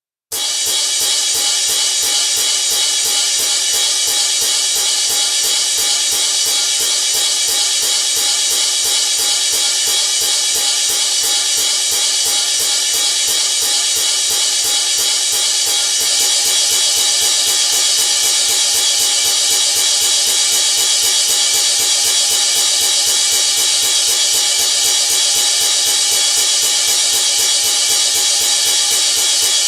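A toy monkey's small cymbals clashing together over and over in a fast, steady rhythm, bright and metallic, starting abruptly and getting slightly louder about halfway through.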